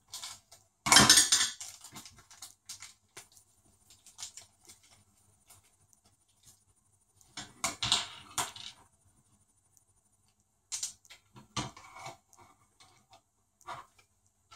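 Hands handling a hard-plastic RC front bumper and small screws: scattered clicks, knocks and rustles, loudest in a clatter about a second in and another around eight seconds in.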